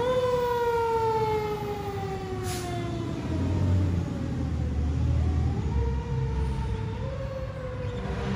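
Fire engine siren wailing: it rises sharply at the start, glides slowly down in pitch, then climbs again twice, with the truck's diesel engine rumbling low underneath as it pulls away.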